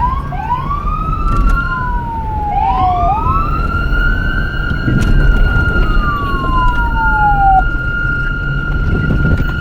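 Police sirens with two tones overlapping: one sweeps up and then holds a steady high note from about halfway through, while the other falls slowly in long wails, over a low rumble.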